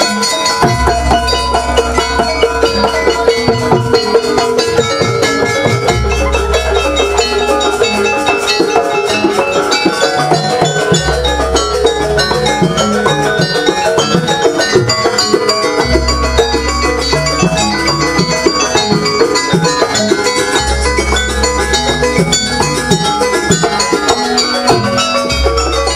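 Jaranan gamelan ensemble playing live: struck metal gong-chimes and metallophones with drums in a fast, busy rhythm, over a held tone and a deep low sound that comes and goes every few seconds.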